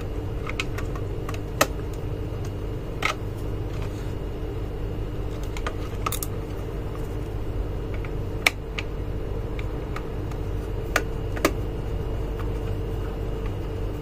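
Small screwdriver clicking and scraping against the screw terminals of a digital thermostat as wires are fastened: scattered sharp ticks, about half a dozen over several seconds, over a steady low hum.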